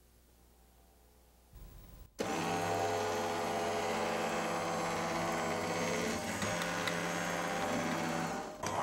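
Electric motor and drive of an Escalera stair-climbing hand truck running steadily as it climbs steps, a steady motor whine starting about two seconds in, dipping briefly near the end and picking up again.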